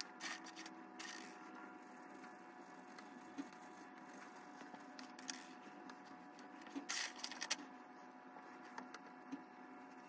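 Steady electrical hum, with a few brief knocks and rustles from paper and pencils being handled on a wooden table; the loudest knocks come about seven seconds in.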